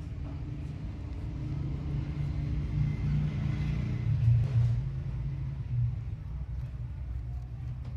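Low, steady mechanical hum and rumble, swelling louder about three to five seconds in.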